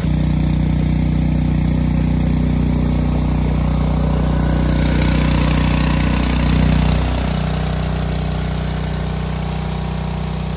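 Small single-cylinder gasoline engine of a Predator 2-inch trash pump running steadily at full throttle while pumping, with a rushing hiss of water jetting from the discharge and splashing on grass. The engine sound drops slightly about seven seconds in.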